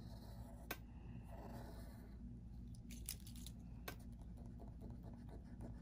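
Faint scratching of a graphite pencil on paper as a wavy line is drawn, with a few short clicks.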